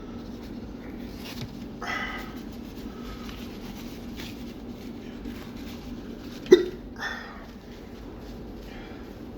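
A man hiccuping a few times, the loudest a sharp one about six and a half seconds in, over a steady low room hum. These are heat hiccups brought on by eating a ghost pepper.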